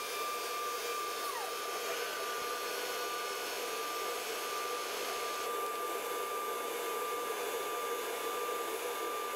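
Steady whooshing motor hum of a CNC machining centre's machinery running, with a steady high whine. About a second and a half in, a short tone slides down in pitch.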